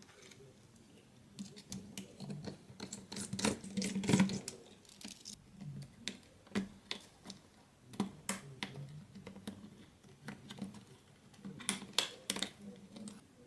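Irregular small clicks, taps and scrapes of hands and tools working on the parts of a disassembled Nokia 5800 XpressMusic phone. They are busiest and loudest about three to four seconds in and again near the end.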